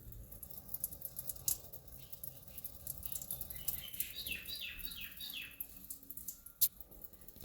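Faint irregular patter and clicks, with a bird chirping about five times in quick succession in the middle, each chirp falling in pitch.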